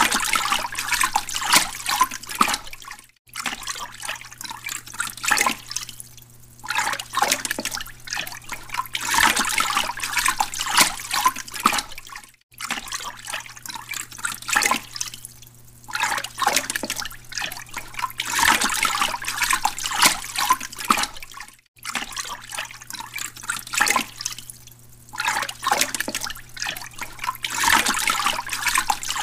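Aquarium water splashing and trickling, as from a filter outflow or air bubbles breaking the surface, over a steady low pump hum. The sound breaks off briefly about every nine seconds.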